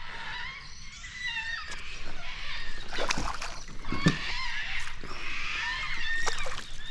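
Several birds calling with short, wavering chirps, and a couple of sharp knocks about three and four seconds in.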